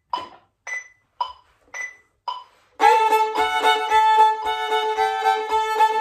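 Metronome ticking at about two clicks a second. About three seconds in, a fiddle comes in on the beat, bowing two strings together in the rocking, syncopated bow rock pattern.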